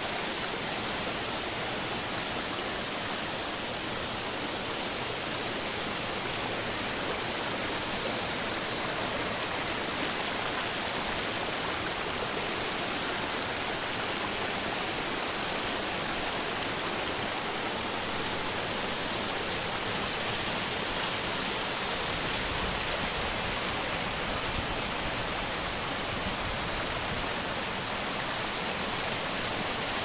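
Waterfall pouring down a rock face and splashing into a pool: a steady rush of falling water.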